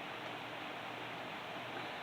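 Steady low background hiss of room tone, with no distinct sound standing out.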